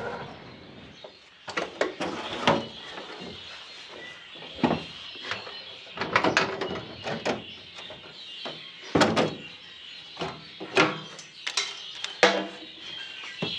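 Irregular metallic clicks, knocks and scrapes of hands handling small fittings on a Series 1 Land Rover and taking off the fuel filler cap of the under-seat tank.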